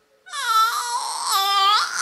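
Baby crying out in a loud, high wail that starts a moment in and breaks briefly near the end before going on.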